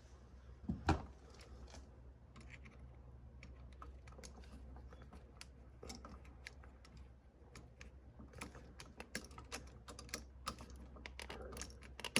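Faint, irregular small clicks and metallic ticks of a bare copper ground wire being hooked under a wall receptacle's green ground screw and tightened with a screwdriver. There is one slightly louder click about a second in, and the clicking grows busier near the end.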